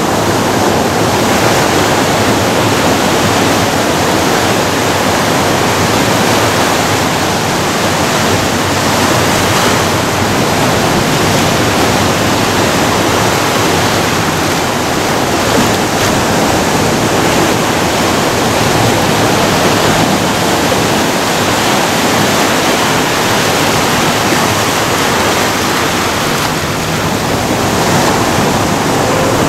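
Ocean surf washing in over a rocky shoreline: a loud, steady rush of breaking waves.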